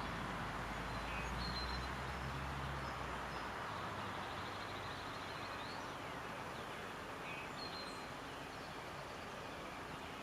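Outdoor background noise with scattered short, faint, high bird chirps. A low hum underneath stops about three and a half seconds in.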